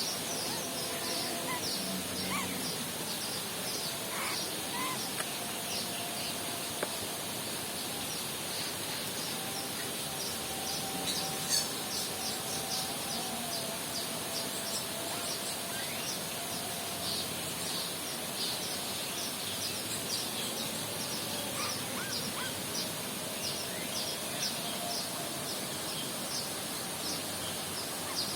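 Many small birds in an aviary chirping at once, a dense stream of short, high, overlapping chirps, as they settle to roost at dusk.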